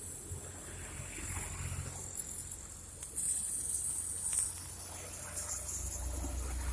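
Downhill stick welding with cellulose electrodes on a steel gas pipeline: a steady high arc hiss and crackle that grows louder about three seconds in, over the low steady hum of the welding machine's engine.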